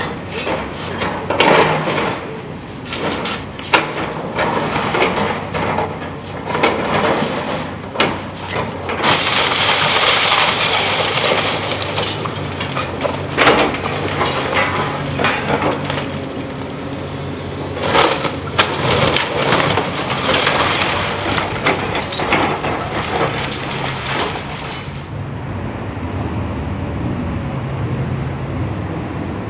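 Excavator tearing apart a wood-frame house: repeated crashes of wood splintering and cracking, breaking glass and falling debris, over the steady drone of the excavator's diesel engine. A longer, denser crash comes about nine seconds in, and near the end the crashing thins out, leaving mostly the engine.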